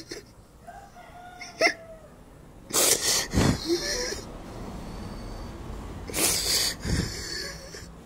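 A man crying: two loud, shaky sobbing breaths about three seconds apart, with quieter sniffling between. A rooster crows faintly about a second in.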